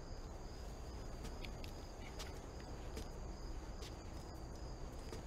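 Crickets chirping steadily in the night, with a few faint clicks and knocks.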